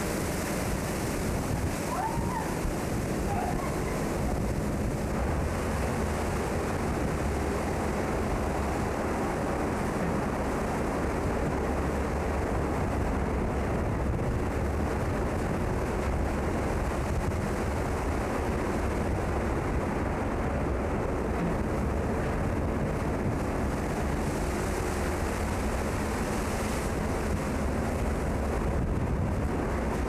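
Steady rush of wind and breaking seas washing along a cargo ship's hull, with wind buffeting the microphone.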